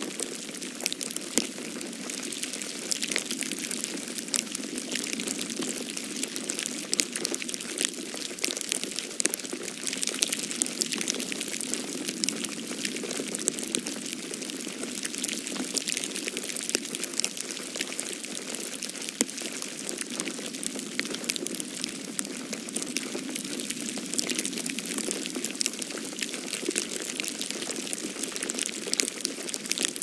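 Snow falling and pattering on leaves, branches and ground: a dense, irregular patter of small ticks over a steady hiss.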